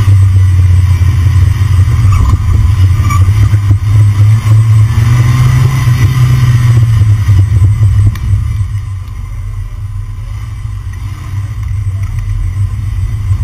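Car driving, heard from a camera under the body beside a front wheel: a loud, steady low rumble of road and running noise that drops noticeably about eight seconds in.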